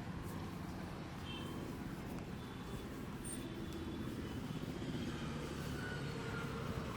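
Street traffic rumbling steadily in the background, with a few faint short high tones now and then.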